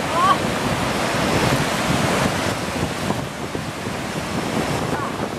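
Whitewater of river rapids rushing steadily, with wind buffeting the microphone.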